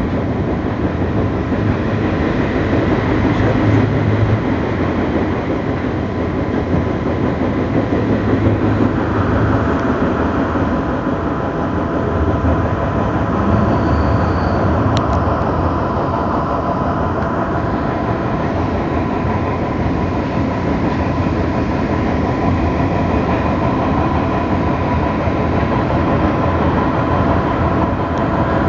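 Passenger train running along the track, heard from inside the carriage: a steady noise of wheels on rails with a faint steady whine.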